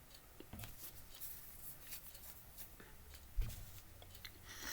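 Faint scattered clicks and light handling noise, with a soft low thump about three and a half seconds in.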